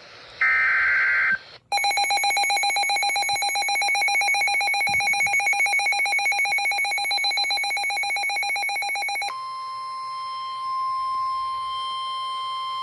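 Emergency Alert System tones ahead of a severe thunderstorm warning. First comes the last burst of the screeching SAME digital header, then about seven seconds of the warbling two-tone EAS attention signal. After that, a steady single-pitched NOAA Weather Radio 1050 Hz warning alarm tone, which marks an alert at warning level.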